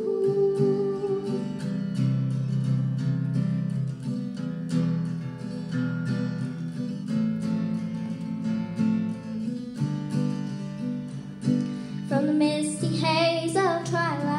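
Acoustic guitar strummed steadily by a solo performer in an instrumental break. A held sung note fades out in the first second or so, and the singing voice comes back in near the end.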